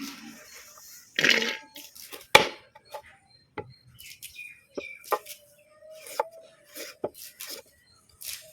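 Close-miked eating sounds: scattered small clicks and taps with a scraping rustle about a second in, and one sharp knock about two and a half seconds in.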